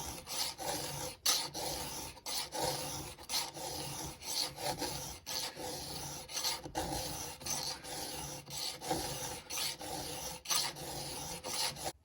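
A file rasping over the steel of a square-ground chainsaw cutter in steady repeated hand strokes, about one or two a second, reshaping the tooth's corner and side plate. The strokes stop suddenly at the end.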